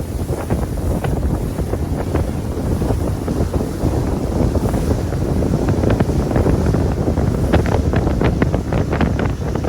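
Wind buffeting the microphone on a moving pontoon boat, with water splashing and slapping against the hull in quick strokes, most of them over the second half.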